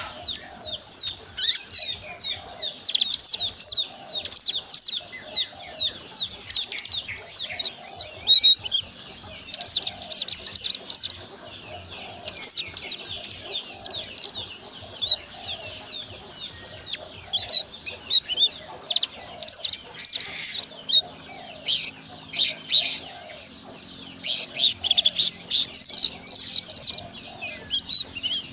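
A young male olive-backed sunbird (sogon) sings in bursts of rapid, high twittering chirps a second or two long, with short pauses between them. It is a young bird still learning its full song.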